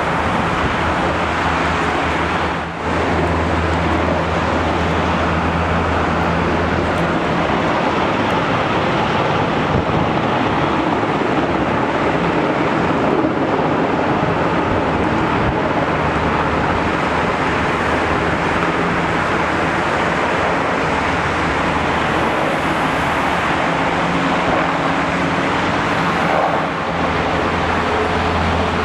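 Several military helicopters flying over the city: a steady drone with a low hum that swells and fades several times, over a constant wash of noise.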